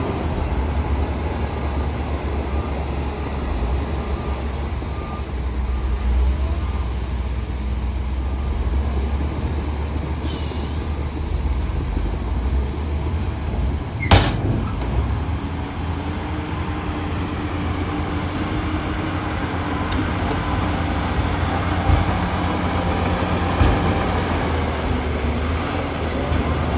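Heavy diesel engines of bulldozers and a dump truck running steadily with a deep rumble. There is a brief high hiss about ten seconds in and a single sharp bang about halfway through.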